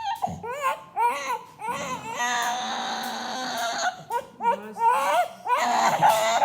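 Young child crying hard in a string of short, wavering wails, with a longer strained cry in the middle and louder cries near the end.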